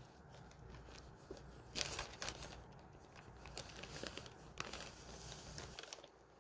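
Crinkling and rustling of a clear plastic sheet as a cat is scratched and shifts against it, in short irregular bursts, loudest about two seconds in.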